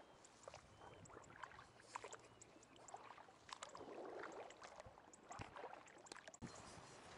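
Faint rustling and light splashing of footsteps through wet grass and shallow paddy water, with scattered small clicks.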